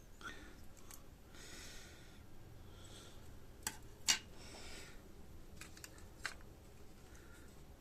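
Hands handling small electronic parts at a workbench: soft rustling with a few sharp small clicks, the loudest about four seconds in.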